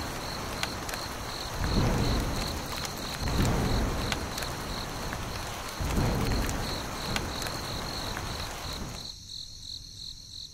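Thunderstorm sound effect: steady rain with three rumbles of thunder, and crickets chirping in a quick steady pulse over it. The rain drops away near the end, leaving the crickets.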